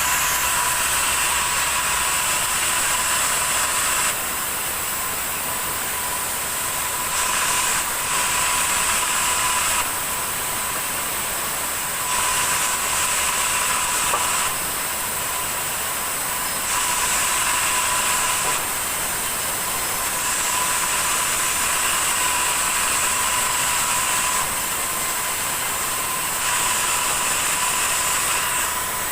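Sawmill saw running, with a steady high whine under a hiss that grows louder and softer every two to three seconds.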